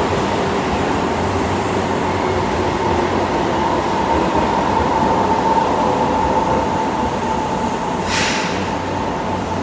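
Keisei electric commuter train running along an underground station platform: wheel and running rumble with a steady electrical whine from its traction equipment, drifting slowly down in pitch. A brief high hiss about eight seconds in.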